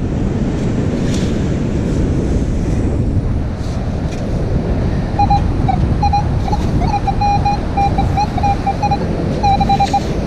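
Strong wind buffeting the microphone over the sound of surf. In the second half a Minelab Manticore metal detector sounds a run of short, steady beeping tones as its coil sweeps over buried metal.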